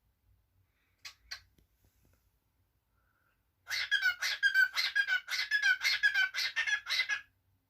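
Cockatiel calling: two short chirps about a second in, then a fast run of harsh chirps, about four a second, lasting some three and a half seconds.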